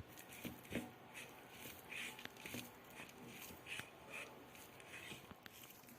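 Dampened peanut-and-spice masala being mixed in a bowl: faint soft scraping with scattered light clicks.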